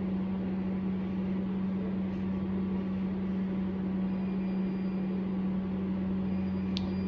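Steady machine hum with one strong low tone and an even fan-like hiss. A single short click comes near the end.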